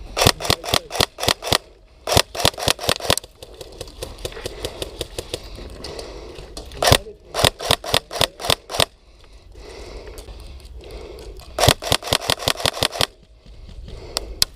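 Airsoft guns firing in four quick strings of sharp cracking shots, about five shots a second, with pauses between the strings.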